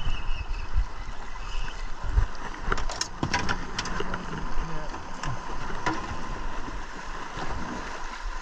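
Wind buffeting the microphone over choppy water slapping against an aluminum boat, with a cluster of sharp knocks and rattles about three to four seconds in as the landing net is picked up from the boat floor.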